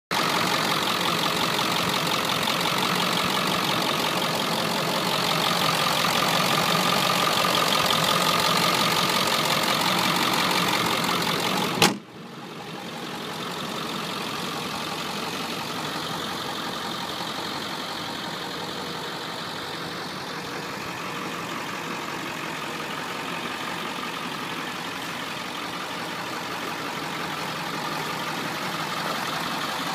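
Ford 7.3 L Power Stroke V8 turbo-diesel idling steadily, heard loud and close from the open engine bay. About twelve seconds in there is a single sharp knock, after which the engine sounds noticeably quieter.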